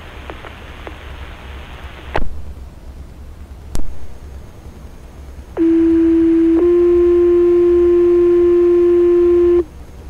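Fire dispatch radio heard through a Baofeng UV-5R scanner: carrier hiss that cuts off with a squelch click about two seconds in, a second click, then a loud two-tone sequential page. The page is a short steady tone of about a second followed by a slightly higher tone held for about three seconds, the alert tones that open a page to a fire station.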